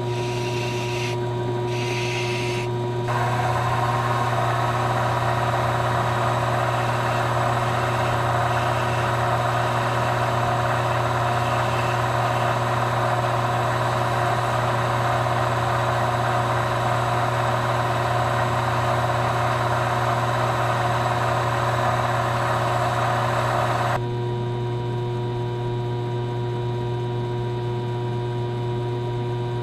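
Small benchtop metal lathe motor running with a steady hum, spinning a leather cue tip. A few short scratchy sandpaper strokes come first. Then, about three seconds in, a louder steady rubbing hiss begins as a tool is held against the spinning tip to burnish it. The rubbing cuts off suddenly well before the end, leaving the motor hum.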